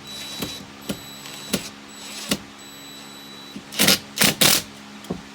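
Cordless drill driving a screw into wood in three short trigger bursts about four seconds in, after a few light clicks. The screw hole was not countersunk, and the wood split as the screw went in.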